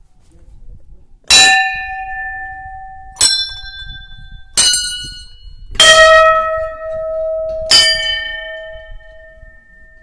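Temple bells struck five times, a second or two apart, each strike ringing on and fading. The strikes differ in pitch, so more than one bell is being rung.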